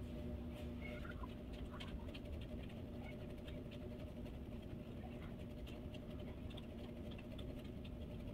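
Faint light ticks and small scratches as a gel polish bottle and its brush are handled during nail painting, over a steady low hum.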